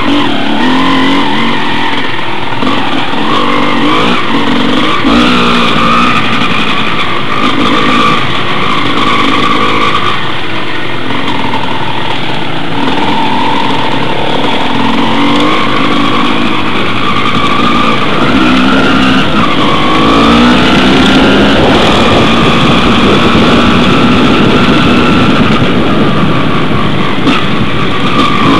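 Off-road motorcycle engine running close to the microphone, its revs rising and falling continually as it rides a rough trail.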